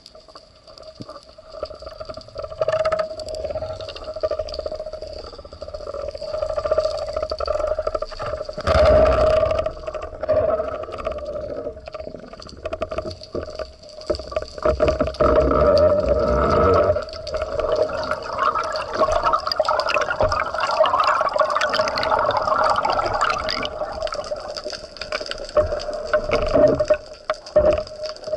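Underwater sound: water rushing and gurgling over a steady, whining hum, swelling louder about nine seconds in and again through the middle of the stretch.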